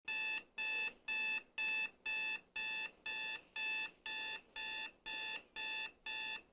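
Digital alarm clock beeping: a steady run of identical short high beeps, about two a second, going off at 8:00.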